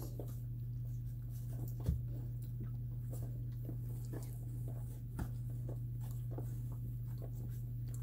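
Three-week-old standard poodle puppies nursing: many small wet suckling clicks and rustles as they jostle on a blanket, over a steady low hum. Two sharper clicks stand out, near two seconds and just after five seconds.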